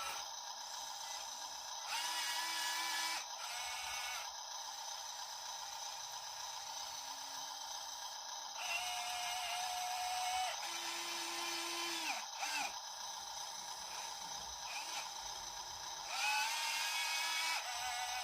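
Small electric motors of 1:50-scale radio-controlled construction models whining in several short runs of one to two seconds each, some rising in pitch as they start, over a faint steady high hum.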